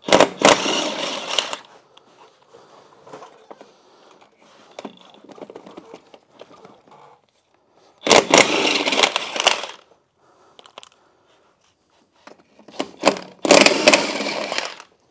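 Cordless impact wrench hammering the lug nuts loose on an ATV wheel: three bursts of about a second and a half each, at the start, about eight seconds in and near the end, with faint clinks of handling between.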